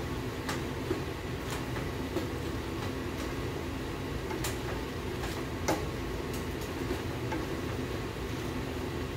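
Wooden spoon stirring chopped vegetables in a stainless steel stockpot, with a few short knocks of the spoon against the pot over a steady low hum.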